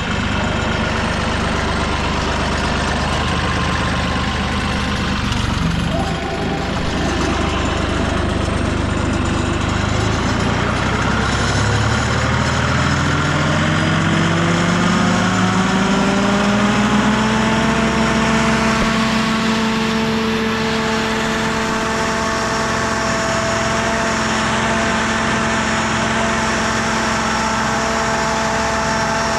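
Carlton SP6016TRX stump grinder's engine idling, then throttled up: its pitch rises smoothly over several seconds about halfway through and then holds at a steady higher running speed.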